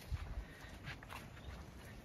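Faint footsteps on wet grass and mud, a few soft scuffs over a low rumble.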